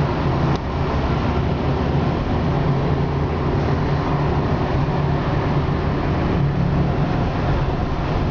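Car engine and road noise heard from inside a moving car: a steady low drone, with a brief click about half a second in.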